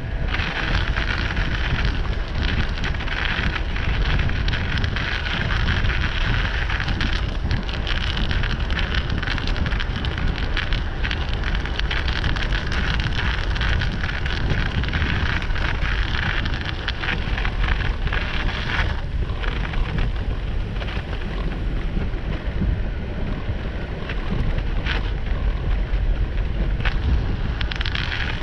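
Wind buffeting a moving microphone with a heavy low rumble, over a steady hiss of tyres rolling through wet slush and thin snow on a paved path. The hiss eases a little in places.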